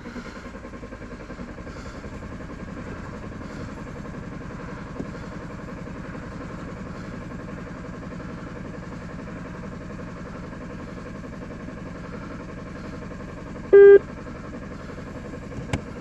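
2009 Ford Mondeo diesel engine cranking steadily on its starter without firing, with fuel rail pressure still slowly building after a blockage in the fuel feed from the tank. A short, loud beep sounds near the end.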